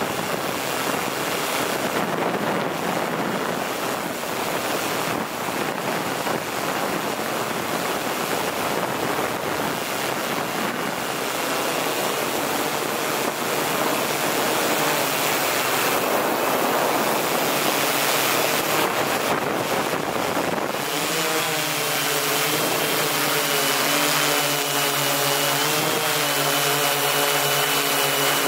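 Wind rushing over the microphone, with a radio-controlled aircraft flying. About two-thirds of the way in, the aircraft's motor hum and high whine come through clearly and hold steady.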